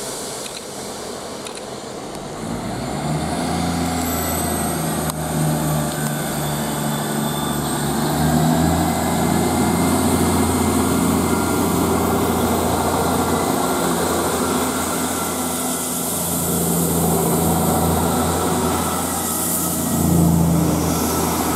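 South Western Railway Class 159 diesel multiple unit pulling away, its underfloor Cummins diesel engines working under power with a steady low drone. The drone sets in about two and a half seconds in and grows louder as the carriages pass close by.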